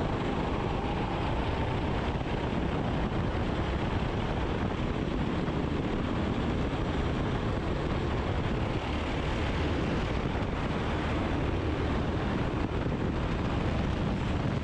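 Four-stroke engine of a Sodikart SR4 rental kart running hard at full throttle while the kart accelerates, with wind buffeting the onboard microphone.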